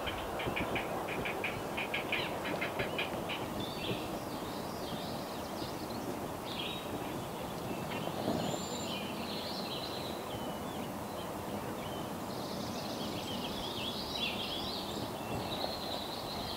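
Great blue heron nestlings giving a rapid clattering chatter of about eight clicks a second for the first few seconds, then small birds chirping over a steady swamp background.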